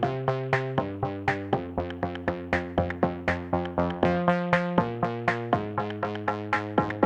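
Background electronic music: a synthesizer playing quick plucked notes in a steady rhythm, about four a second, over changing chords.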